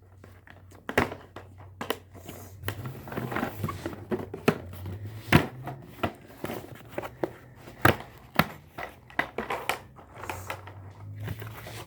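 Packaging fasteners being worked off a plastic toy truck: irregular clicks, taps and crinkling of plastic and packing material.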